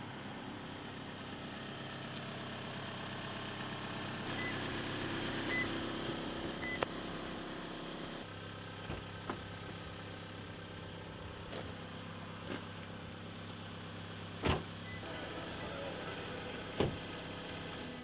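A car engine idling steadily, with a few short high beeps and then several sharp knocks and clicks of car doors and the tailgate being handled.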